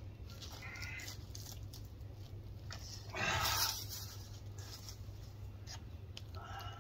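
A brief crunchy rustle about three seconds in, with a few fainter rustles around it, over a low steady rumble.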